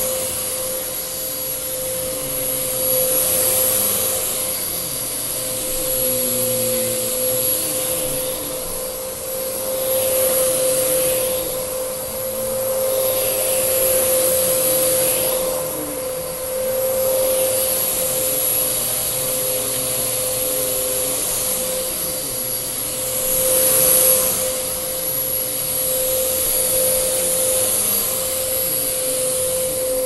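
Bagless upright vacuum cleaner running on carpet: a steady motor whine under a rushing hiss that swells and fades as it is pushed back and forth.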